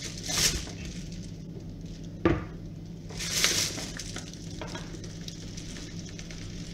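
Flour poured from its bag into a glass measuring mug standing in a plastic bowl: two soft hissing pours, with one sharp knock a little past two seconds, over a steady low hum.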